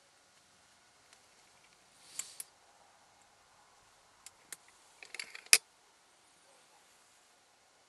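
Mechanical clicks and rattles from handling an air rifle: a short pair of clicks about two seconds in, two single clicks a little after four seconds, then a rattling run of clicks ending in one sharp, loud click about five and a half seconds in.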